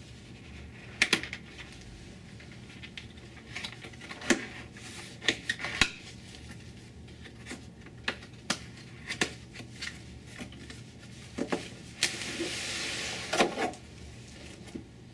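A cardboard laptop box being handled and opened by hand: scattered taps, clicks and knocks, then a scraping rasp lasting about a second and a half near the end.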